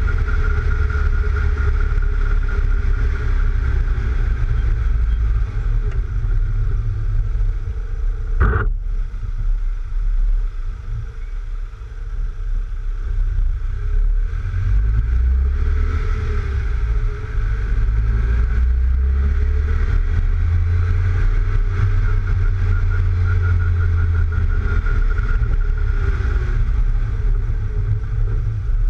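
Mk3 VW Golf driving along a street, heard from a camera mounted low beside the front wheel: heavy wind buffeting on the microphone, which the owner blames on the roof racks, over steady engine and tyre noise. One sharp knock about eight and a half seconds in.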